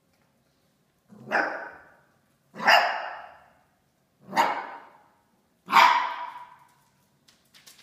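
A dog barking four times, about one and a half seconds apart, each bark loud and trailing off.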